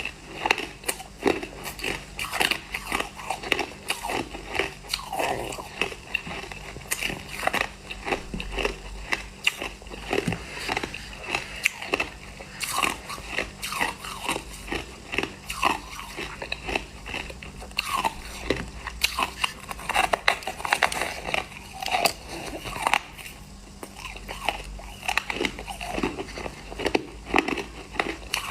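A person chewing a mouthful of crushed ice: a steady run of crisp crunches, several a second.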